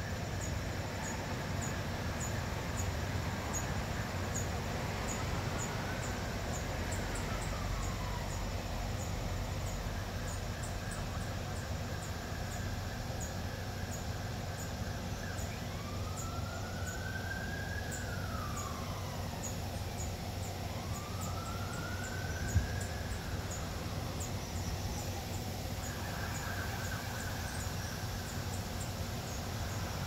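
An emergency-vehicle siren wailing, its pitch rising and falling slowly three times, over a steady background hiss. A fast, regular high ticking runs underneath, and there is one sharp click about three-quarters of the way through.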